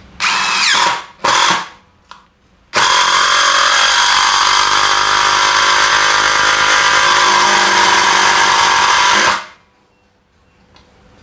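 DeWalt DCF787 cordless impact driver driving a long screw into bengkirai hardwood: two short bursts to start the screw, then about six and a half seconds of continuous impacting before it stops.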